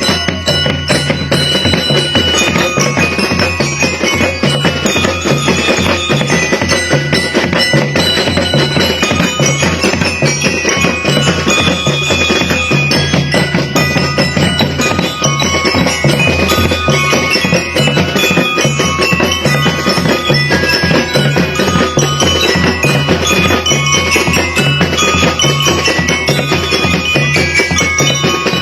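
Drum and lyre corps playing a pop tune: bell lyres ring out the melody over a steady drum beat.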